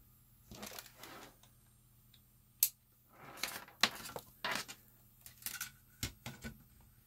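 Handling noise: irregular clicks and rustles of a clamp multimeter and its test leads being picked up and set down on a metal power-supply case, with one sharp click about two and a half seconds in.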